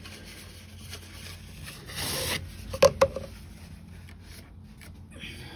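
Paper towel rubbing and rustling against the lawnmower engine around the oil fill neck, wiping up spilled oil. There is a louder burst of rubbing about two seconds in, then two sharp knocks in quick succession.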